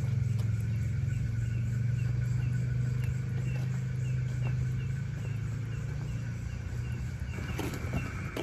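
A steady low mechanical hum, easing off near the end, under insects chirping about three times a second.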